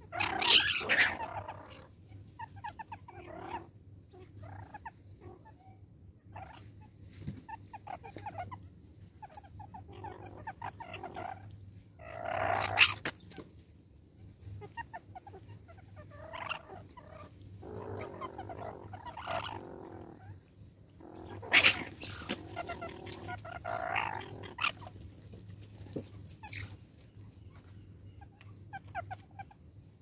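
A pack of banded mongooses feeding, giving bursts of chattering calls throughout, with a few louder squabbling outbursts.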